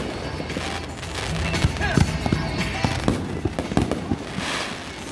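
Fireworks display: aerial shells going off in a rapid string of bangs and pops, several a second, with music playing under them.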